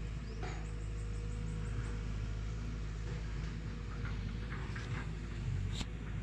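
Forest ambience: faint, high bird calls, a quick run of chirping notes near the start and scattered short calls later, over a steady low hum. A sharp click near the end.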